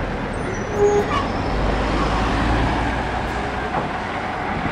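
Engine and road noise heard from a moving vehicle, a steady low rumble with traffic around it. A few short faint tones come about a second in.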